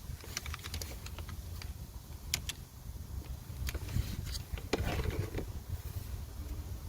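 Irregular light clicks and taps, a few to several a second, over a steady low rumble.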